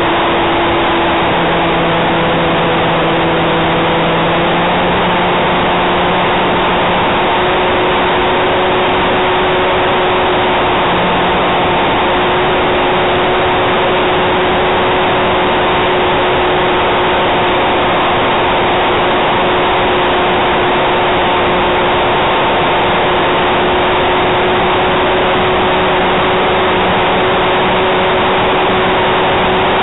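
Propeller and motor of an RC model Cessna 400 Corvalis heard from its onboard camera in flight: a steady drone with a loud rush of wind noise. The pitch shifts slightly about four seconds in, then holds steady.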